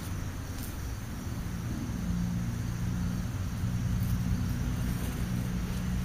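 Low engine rumble of a car on the road, growing louder from about a second and a half in and holding steady.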